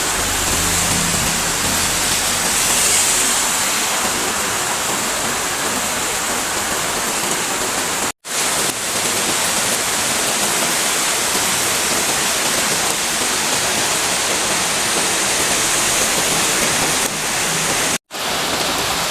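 Heavy rain pouring down in a steady, loud hiss, cut twice by a momentary silence, at about 8 seconds in and again near the end.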